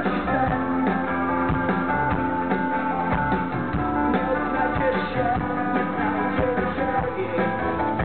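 Rock band playing live: electric guitar strummed over a drum kit, at a steady full volume with a regular drum beat.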